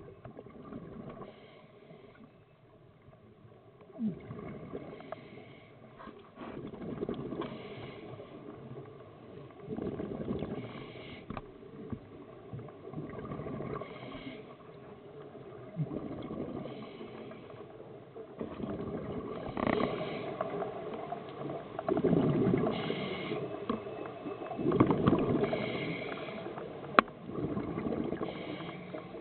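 Scuba regulator breathing heard underwater: bubbles gurgling out on each exhale in surges every few seconds, with quieter water noise between.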